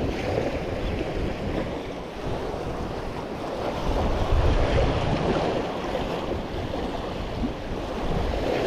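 Sea surf washing against a rock jetty, with wind buffeting the microphone; the noise swells about four seconds in.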